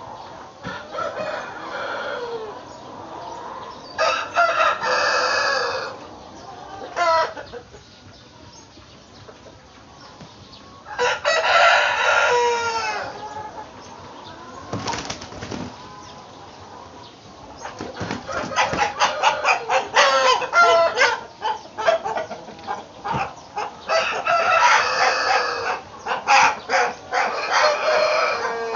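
White roosters calling and crowing in bursts, with wing-flapping, from many chickens in a poultry house. Calls come around 4 s and 11 s in, then a busier stretch of calling and flapping runs through the second half.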